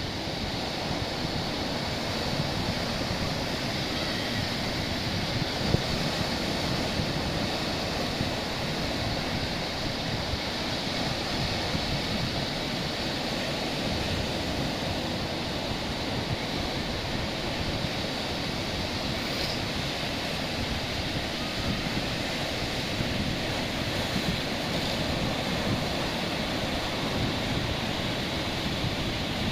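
Ocean waves washing on a beach in a steady, unbroken rush, with wind on the microphone.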